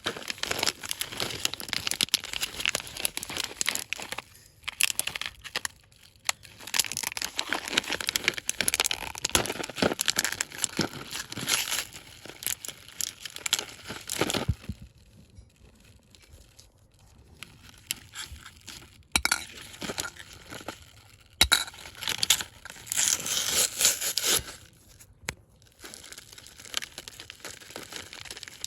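Plastic candy wrappers crinkling and tearing open, in bursts with sharp clicks and clinks, quieter for a while in the middle.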